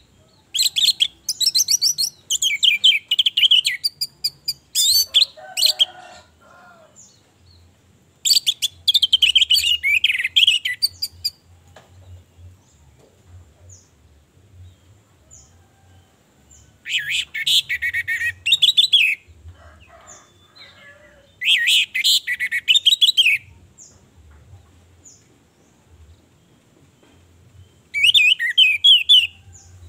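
Orange-headed thrush singing in five loud phrases of rapid, high warbling notes, each lasting two to four seconds, with pauses between. The bird is in full song, the kind used as a lure to set male birds singing.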